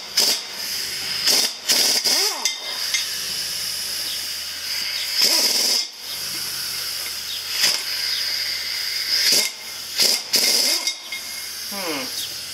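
Pneumatic impact wrench firing in about eight short bursts on the spreader's hub nuts, the longest burst about five seconds in, over a steady hiss of compressed air.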